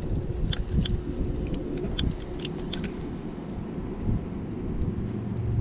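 Wind rumbling on the microphone, with a quick string of small sharp clicks and taps in the first three seconds as the line and a freshly caught snook are handled.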